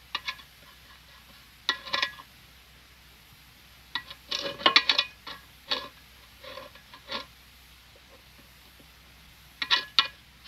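A series of short, sharp knocks and clatters in small irregular clusters, the busiest group about four to five seconds in, over a faint hum.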